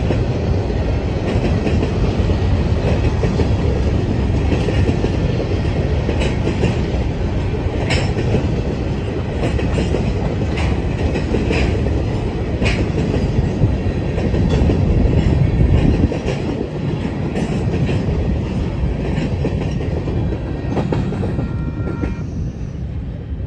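Freight train of covered hopper cars rolling past on steel wheels. A steady rumble runs with clickety-clack over the rail joints and a few sharp metallic clanks in the middle. The rumble fades near the end as the last car goes by.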